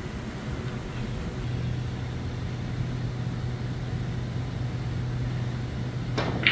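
A steady low hum of the hall's background. Near the end come two sharp clacks of snooker balls being struck as a shot is played, the second the louder.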